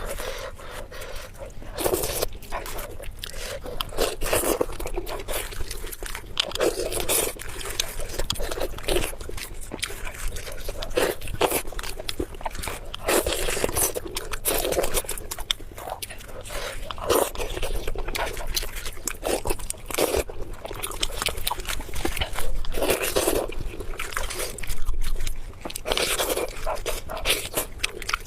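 Close-miked eating sounds: a person chewing, biting and crunching food, with wet smacking and scraping in irregular bursts every second or two.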